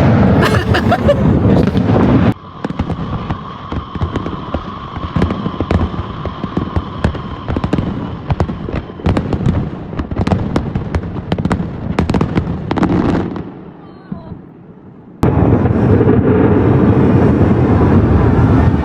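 Fireworks going off: a run of many sharp cracks and pops, then after a brief lull a loud, dense, continuous din of bursts from about fifteen seconds in.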